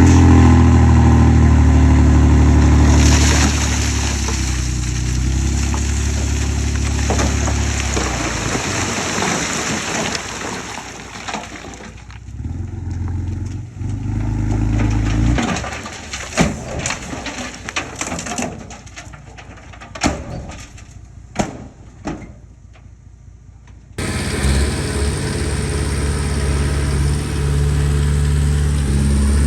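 Komatsu D20P bulldozer's diesel engine running under load, with changing pitch. Partway through the engine sound drops lower and a series of sharp knocks and clanks stand out. Near the end it comes back loud all at once.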